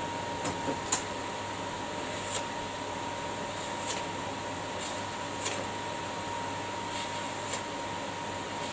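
Steady electric motor hum with a thin, even whine, and a few faint clicks scattered through it.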